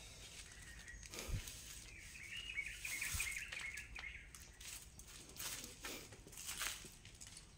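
A small bird chirping in a quick trill for about two seconds, a couple of seconds in. There are a few short, scattered knocks or crunches around it.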